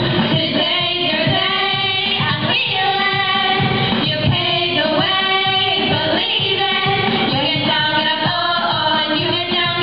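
A group of girls singing a pop song into microphones, with an amplified accompaniment carrying a steady beat underneath.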